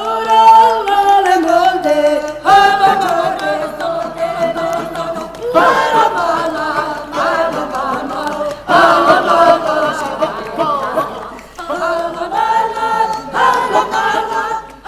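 Several voices singing a Romani folk song together, in phrases of about three seconds each.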